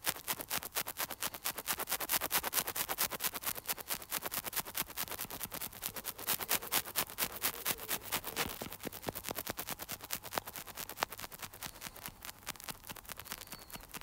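Stylus tip tapping and flicking against an iPad's glass screen in quick short hair strokes, many a second, thinning out in the last few seconds.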